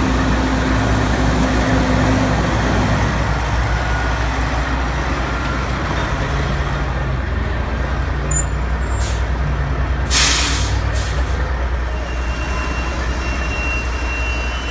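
Heavy-duty Jerr-Dan wrecker's diesel engine running as the truck moves slowly past. About ten seconds in there is a loud air-brake hiss lasting about a second, with shorter hisses just before and after it.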